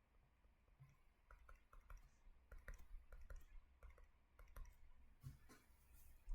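Near silence with faint, irregular light clicks, about two or three a second, from a pen or stylus at work drawing a structure.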